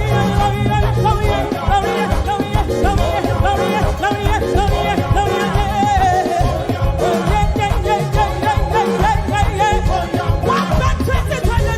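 Live praise band playing upbeat music with a steady beat, with a lead voice singing over it.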